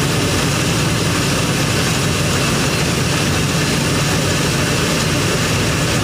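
Fiatagri combine harvester running steadily under load while its unloading auger discharges wheat grain into a trailer: a continuous heavy drone with a hiss of machinery and pouring grain over it.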